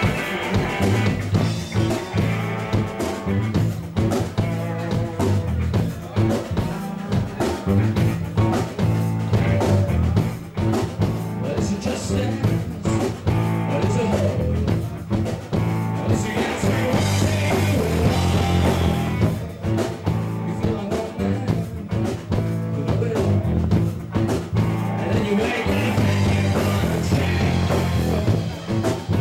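Live rock band playing a song: electric guitar, electric bass and drum kit.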